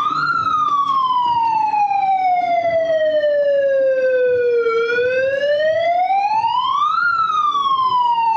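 A wailing siren, its pitch sliding slowly up and down: it peaks just after the start, sinks low for several seconds, then climbs to a second peak about seven seconds in and falls away again.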